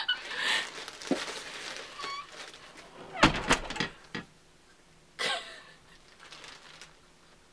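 Quiet laughter and breathy exhales, with a cluster of sharp knocks about three seconds in as a jar is handled.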